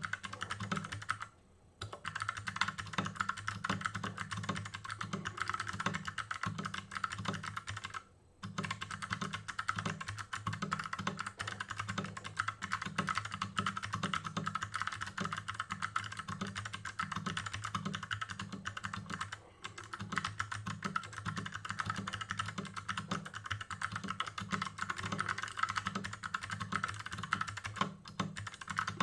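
Fast, continuous touch typing on a custom-built 60% mechanical keyboard with Kailh Box Pink clicky switches, a steel plate and an aluminium case: a dense run of key clicks with a few brief pauses.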